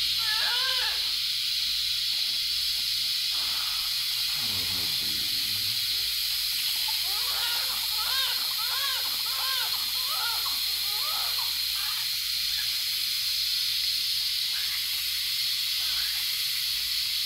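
A newborn baby whimpering, a run of short rising-and-falling cries in the middle, over a steady loud hiss.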